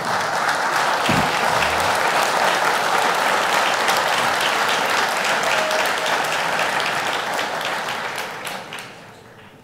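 Audience applauding: dense, steady clapping that dies away over the last couple of seconds.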